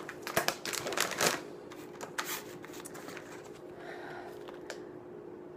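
Objects being handled on a kitchen counter: a quick run of light taps and rustles in the first second and a half, then fainter handling noise, over a faint steady hum.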